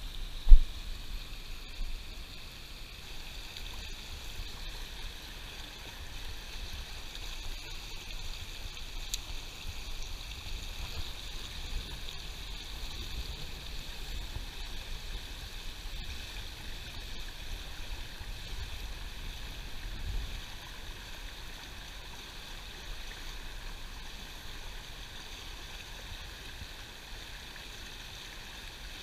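Shallow river riffles rushing and burbling over rocks in a steady hiss. A single sharp knock sounds about half a second in.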